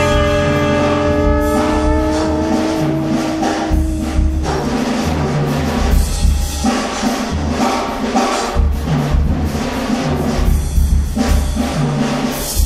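Background music: a held guitar chord fades out over the first few seconds, then drums and a deep bass line carry a steady beat.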